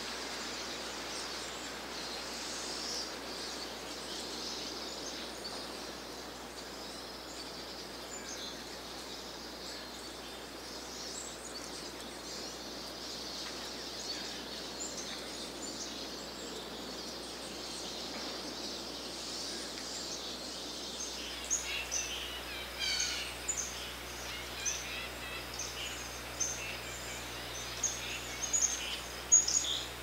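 Small songbirds calling with thin, high chirps over a steady background hiss. About two-thirds of the way through, the chirps become louder and more frequent.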